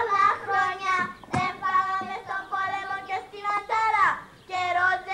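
A child singing into a handheld microphone, holding steady notes with short breaks and a falling slide about four seconds in. A single sharp knock sounds about a second and a half in.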